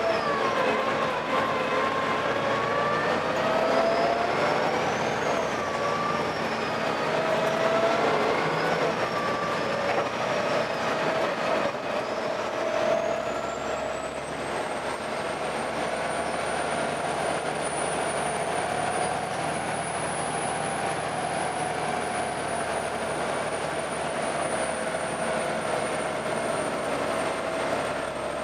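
Volvo B7TL double-decker bus's diesel engine and drivetrain running, with whining tones that rise and fall, then a high-pitched whine that climbs about halfway in and holds steady. This is the weird engine noise the bus is recorded for.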